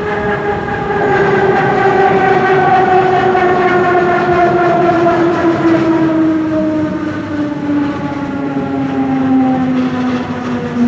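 Berlin S-Bahn class 485 electric multiple unit's traction motors whining as the train slows for a station: a stack of tones falling steadily in pitch over the rumble of the wheels on the track.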